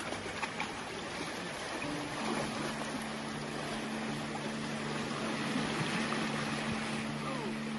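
Fast-flowing river water rushing steadily over riffles, with soft background music of held low notes coming in about two seconds in.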